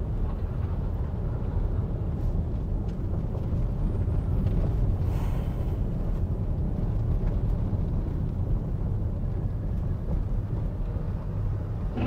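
Steady low rumble of a Honda Stepwgn Spada minivan being driven, road and engine noise together, with a brief rising hiss about five seconds in.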